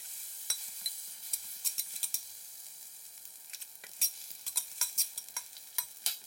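Butter melting and sizzling in a hot cast iron skillet: a steady hiss with many sharp crackling pops, a few louder ones about four and five seconds in.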